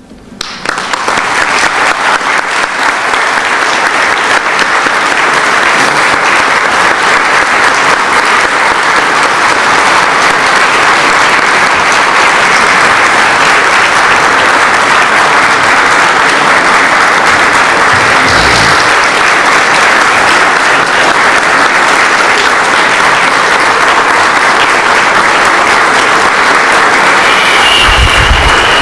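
Audience applauding, starting suddenly and keeping up a steady, loud clapping, with two brief low thumps about two thirds of the way in and near the end.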